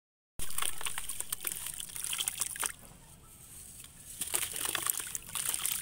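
A wet ball of sandy clay crushed in the hands over a basin of water: soft crumbling and crackling with water trickling and dripping back into the basin. It comes in two spells, one starting about half a second in and easing off before the halfway point, the other starting about four seconds in.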